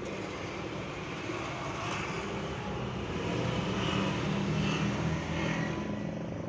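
A vehicle engine running steadily, a dense rushing noise over a low hum, growing a little louder in the second half.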